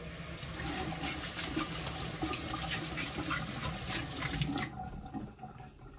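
Kitchen faucet running into a stainless steel sink, the stream splashing over hands rinsing string beans. The water shuts off a little over a second before the end.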